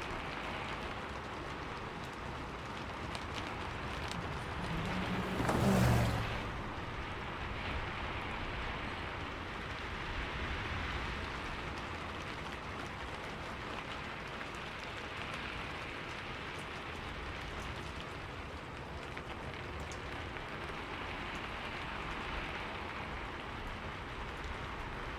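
Steady rain falling on a city street, an even hiss throughout. About five to six seconds in, a vehicle passes close by, swelling and fading over a second or two.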